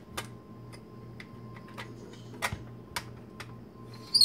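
Hard plastic clicking and tapping as a slicing disc is slid and seated into the top housing of a Cook Essentials electric mandoline, a few scattered light clicks, then a louder, sharper click near the end.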